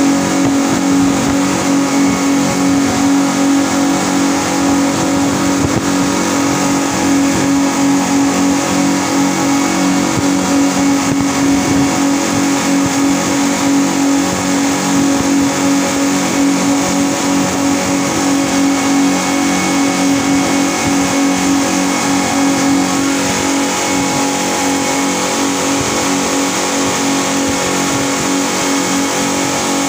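Twin outboard motors of a speedboat running steadily at speed, a constant drone with a strong low hum, over the rush of the wake and wind. It becomes slightly quieter and smoother about two-thirds of the way through.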